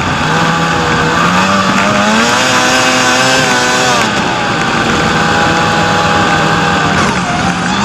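Snowmobile engine running under way. Its revs climb about two seconds in and waver, then hold steady, and drop briefly near the end, over a steady rushing hiss.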